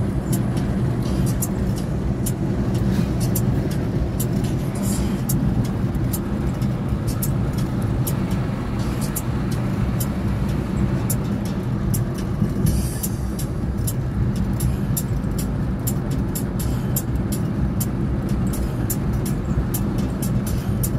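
Car driving along a road, with a steady low rumble of engine and road noise heard inside the cabin and many short, sharp clicks throughout.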